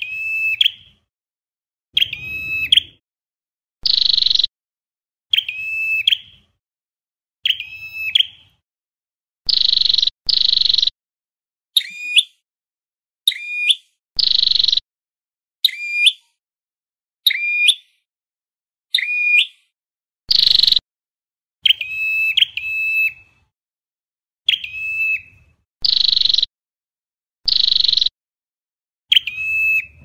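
Ashy tailorbird calling in a steady series of loud short notes, about one every one and a half seconds. It mixes two kinds of note, a lower note with a quick hooked turn in pitch and a higher, fuller one.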